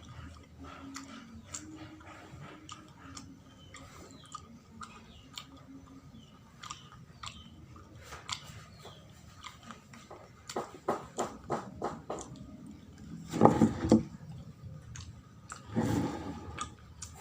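Close-up chewing of sawella, a sticky sweet of glutinous rice, coconut and palm sugar: wet mouth clicks and smacks, with a quick run of smacks about ten seconds in and two louder, longer noisy bursts near the end.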